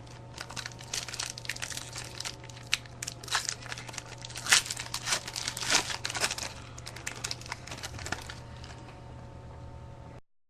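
Trading-card pack wrappers crinkling and tearing as baseball card packs are opened and handled, in many irregular crackles over a steady low hum. The sound cuts off suddenly near the end.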